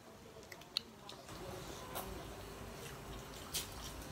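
Close-up eating sounds: fingers squishing curry-soaked rice and chicken, and chewing, with a few sharp clicks scattered through.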